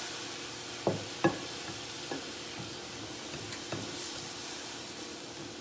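Seasoned plant-based beefless ground sizzling in a frying pan with a little water just added, stirred with a spatula: two sharp knocks of the spatula against the pan about a second in, then lighter scrapes and taps over the steady sizzle.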